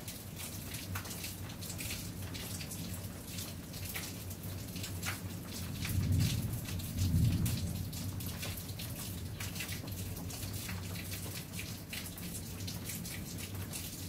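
Steady rain with close drops pattering and ticking on hard surfaces. A low rumble swells twice a little after the middle.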